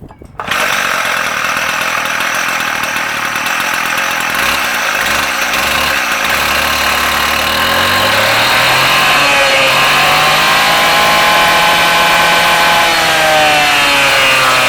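Stihl TS420 two-stroke cut-off saw starting up about half a second in and running loudly. Its speed rises through the middle and drops back near the end.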